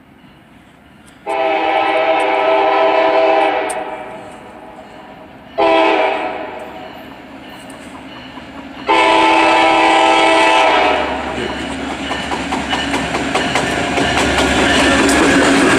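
Air horn of a CSX GP40WH-2 locomotive sounding three blasts, long, short, long, as it approaches. The locomotive's engine rumble and the clicking of its wheels over the rail joints then grow louder as it passes close by.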